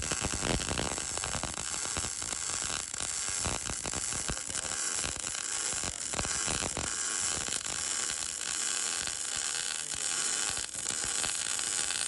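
MIG welder arc laying one continuous bead along a steel plate on a Jeep frame: a steady, fast crackling sizzle that runs unbroken.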